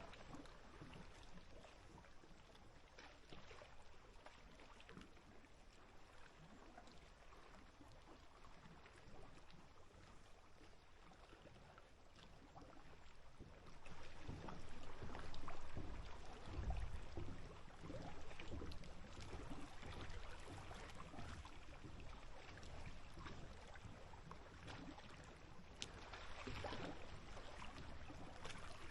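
Small waves lapping against the lake's edge, water popping and plopping in many short splashes. They grow louder for a few seconds around the middle.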